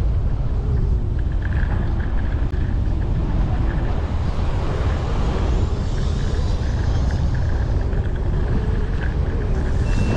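Wind buffeting the action camera's microphone over the road rumble of a Ninebot Max electric scooter in motion: a steady, loud, low rumble, with a swell of higher hiss around the middle.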